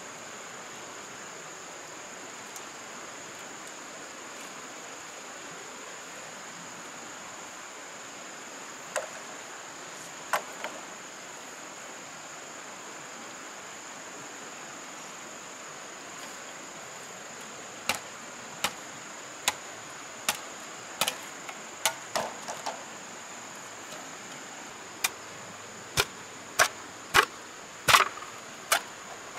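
Chopping wood with a blade: a few scattered sharp strikes, then a steady run of chops about once a second through the last ten seconds or so. A constant high-pitched insect drone and a steady hiss lie underneath.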